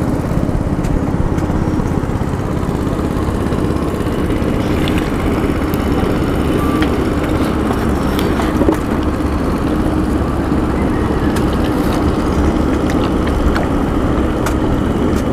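Small boat's engine running steadily, a constant low rumble.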